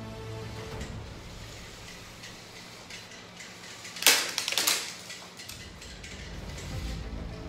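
Small electric motors of Lego combat robots running with a steady hum, and about four seconds in a quick clatter of several hits as a spinning plastic weapon strikes Lego bricks.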